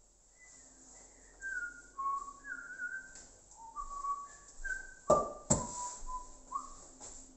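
A person whistling a short tune, clear held notes stepping up and down in pitch. Two sharp knocks about five seconds in are the loudest sounds.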